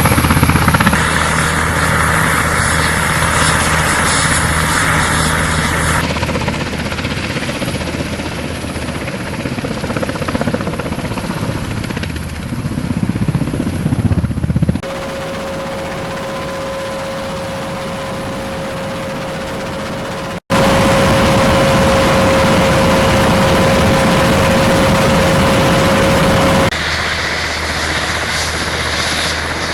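Military helicopter rotors and turbine engines running, in several shots cut together; through the middle shots a steady high turbine whine rides over the rotor noise.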